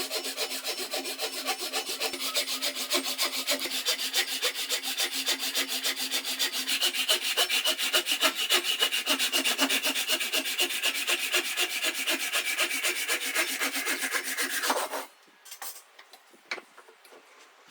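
A hand tool working wood in rapid, even back-and-forth strokes, about five a second, with a steady ringing tone running through them. The strokes stop abruptly about fifteen seconds in, followed by a few light knocks.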